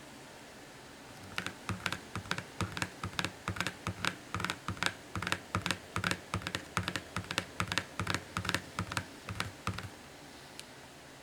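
A rapid run of light clicks, about five a second, starting about a second and a half in and stopping near the end.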